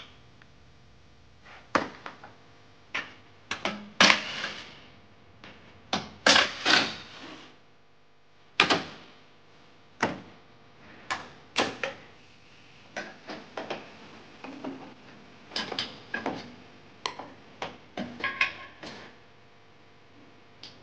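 Plastic front bumper cover and trim of a BMW E36 being worked loose and pulled off by hand: an irregular run of knocks, clunks and short rattles, loudest about four and six seconds in.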